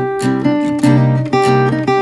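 Background music: a guitar piece with plucked chords struck every third to half second.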